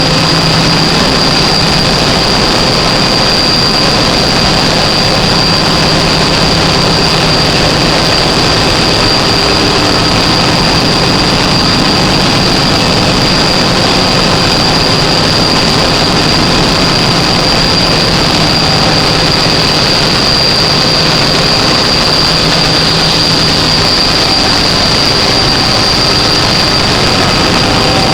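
Gas engine generator running steadily at constant speed, with a steady high-pitched whine over the engine noise.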